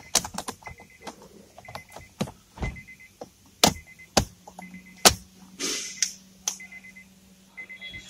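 Plastic snaps and clicks as a Honda Accord's new power window master switch panel is pressed by hand into the door armrest, the loudest a little under 4 s and about 5 s in. A short electronic beep repeats about once a second throughout.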